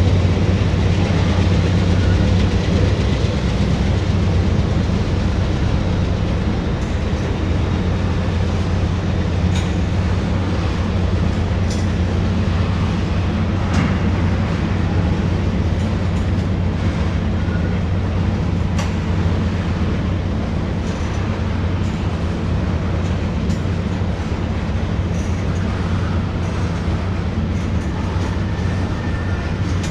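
Train cars rolling across a bridge: a steady low rumble with occasional faint clicks of wheels over the rail joints.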